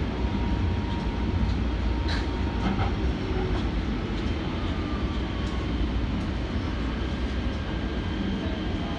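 Kinkisharyo P3010 light rail vehicle running on the track, heard from the front cab: a steady rumble of wheels and running gear, with a few light clicks and a faint whine that falls slowly in pitch.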